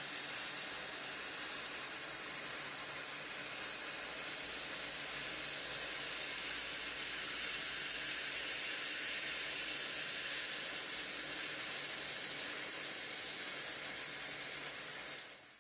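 1000 W fiber laser cutting machine cutting through 5 mm stainless steel sheet: a steady hiss of the assist gas and cut at the nozzle, with a faint low machine hum underneath. The hiss cuts off suddenly near the end.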